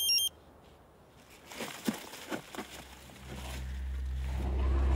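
Dräger X-am 2000 gas detector giving rapid warbling beeps that cut off just after the start. A few soft knocks and rustles follow, then a low steady drone swells from about three seconds in.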